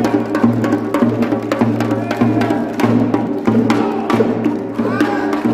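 Korean pungmul percussion ensemble playing: buk barrel drums and janggu hourglass drums beaten in a fast, dense rhythm over the steady ring of gongs.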